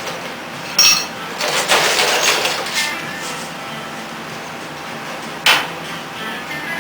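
Two sharp metallic clanks, one about a second in and one near the end, the first ringing briefly, with a rough scraping clatter of metal being handled in between, over a steady hum.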